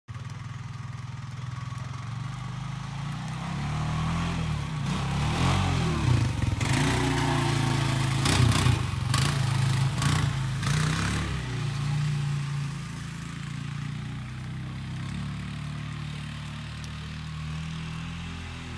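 Four-wheeler ATV engine running as it tows a rider through snow, growing louder and revving as it passes close in the middle, then easing off as it moves away. A few sharp clattering noises come when it is closest.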